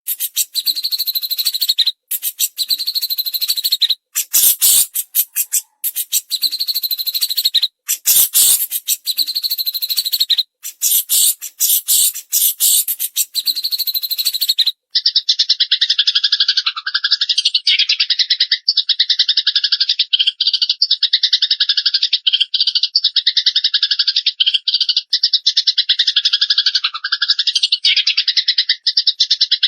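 Recorded songbird chatter of the kind used to train cage birds, from Eurasian tree sparrow and cililin. The first half is rapid, harsh chattering phrases with brief pauses. About halfway through, a sudden change leads into a continuous fast trill.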